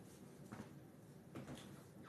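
Near silence: room tone, with two faint, brief soft sounds about half a second and a second and a half in.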